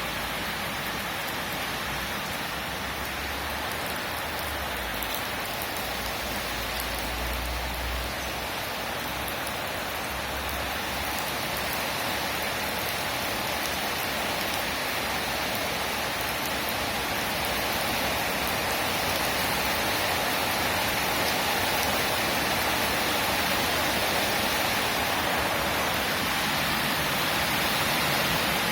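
Steady rain falling, a dense even hiss that grows a little louder in the second half.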